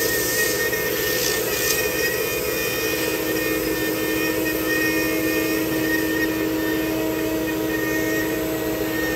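Spindle of a STYLECNC STM1325D-4A 4-axis CNC wood router running with a steady whine while carving a block of wood, the head swinging from upright to horizontal as it cuts.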